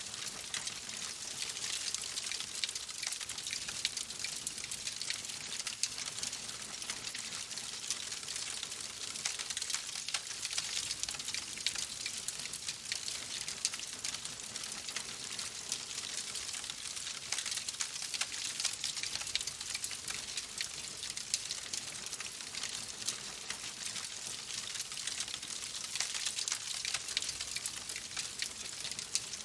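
Oak logs burning in a fireplace: a steady hiss with many small, quick crackles and pops.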